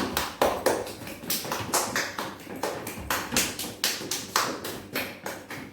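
Hand claps, quick and even at about four to five a second, stopping just before the end. In this game, fast clapping is the signal to move fast.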